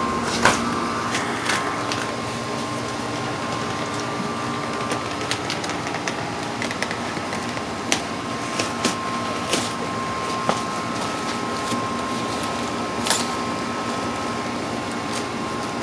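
Packaging inside a TV's shipping box being handled: scattered light clicks and scrapes over a steady background hum.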